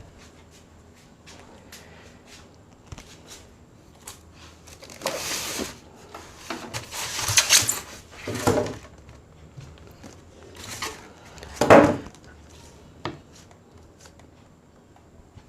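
Hand handling noise from fitting a stand onto a plastic speaker unit: scattered light clicks and knocks, with several short louder scrapes and rustles in the middle, the loudest about three quarters of the way through.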